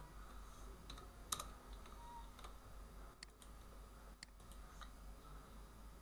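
A handful of sharp, scattered clicks from a computer keyboard and mouse, the loudest about a second in, over a faint low hum.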